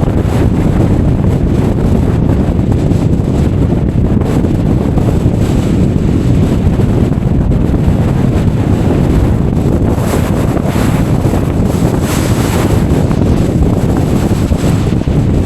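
Strong wind buffeting the microphone: a loud, steady rumbling noise, with gusts adding a hiss about ten seconds in.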